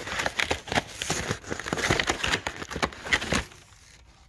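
Plastic packaging crinkling and small clicks of loose metal sockets being handled, stopping about three and a half seconds in.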